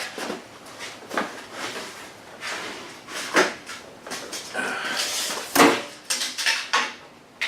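Rails and parts of a Wixey WR700 digital readout kit being handled as they are unpacked: scattered clinks and knocks, with a short rustle of packaging about five seconds in.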